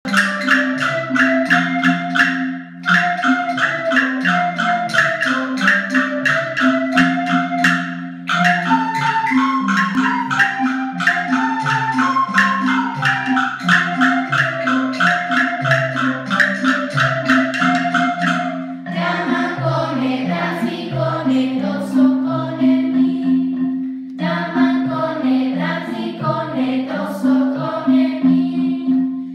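Lively instrumental music with a steady quick beat and a melody over a low, stepping bass line. It breaks off briefly twice early on, and about two-thirds of the way through the arrangement changes and thins.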